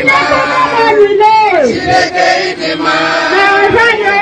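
A crowd singing and chanting together in celebration, many voices at once, with one voice sliding down in pitch about a second in.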